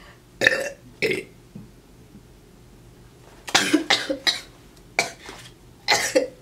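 A woman burping and coughing in short bursts after swallowing pills with a soft drink: two bursts near the start, then a quicker run of them over the last three seconds.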